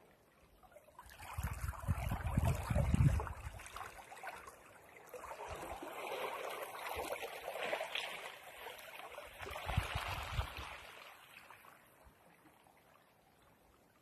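Small sea waves washing in over shoreline rocks and pebbles and draining back. A rushing surge about a second in is the loudest, with a low rumble. A longer, softer wash follows in the middle and dies away near the end.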